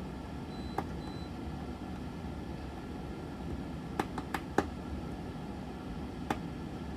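Small sharp clicks from hand work on alarm-panel wiring: one early, a quick run of four about four seconds in, and another near the end, over a steady low hum.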